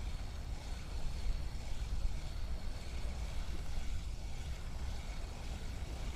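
Wind buffeting the microphone: a steady, gusting low rumble with a faint hiss above it.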